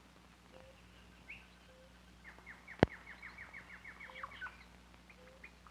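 Faint bird calls: a fast run of short downward chirps lasting about two seconds, a few separate chirps, and soft low whistled notes that recur every second or so. A single sharp click about halfway through is the loudest sound.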